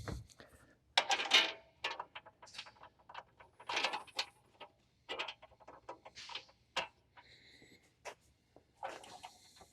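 Small fence-frame parts and bolts being handled and fitted: irregular clicks and knocks with several short scraping slides.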